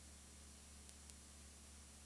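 Near silence: a steady low electrical hum and hiss, with two faint clicks about a second in.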